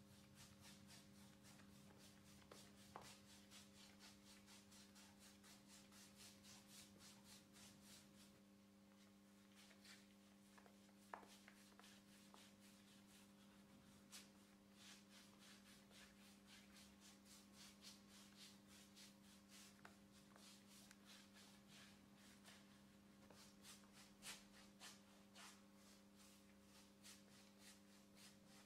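Faint, rhythmic swishing of a paintbrush spreading linseed oil paint over a wooden door, about two to three strokes a second, over a steady low hum.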